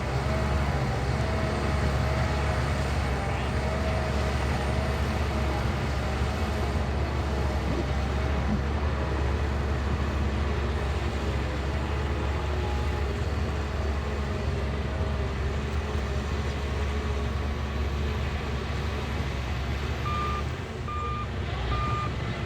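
Shantui bulldozer's diesel engine running steadily under load. Near the end the engine eases off and the reverse alarm starts beeping, about one and a half beeps a second, as the dozer backs up.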